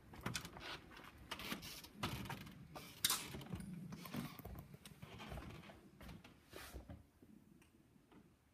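Irregular knocks, clicks and rustles of someone walking through a doorway with a handheld phone, with handling noise on the phone's microphone; the sharpest knock comes about three seconds in, and it all dies down near the end.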